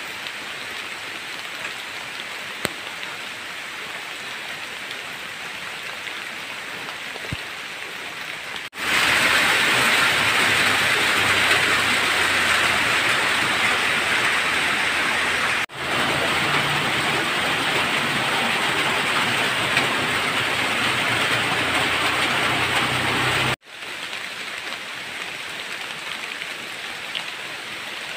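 Heavy rain falling steadily, a dense even hiss. About nine seconds in, it cuts suddenly to a louder, harsher rain sound. That louder stretch lasts some fifteen seconds, with one brief break midway, then drops back just as suddenly to the softer rain.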